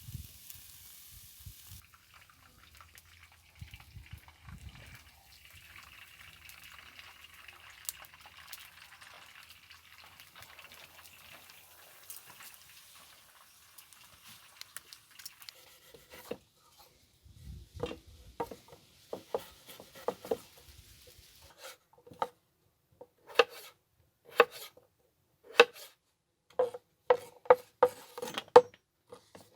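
Faint handling and liquid sounds for about fifteen seconds. Then a knife starts chopping on a cutting board, single sharp strikes that come faster near the end.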